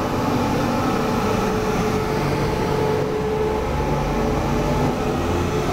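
Electric power car of a TRA E1000 push-pull express train pulling out along the platform: a steady electric hum over the low rumble of the running gear.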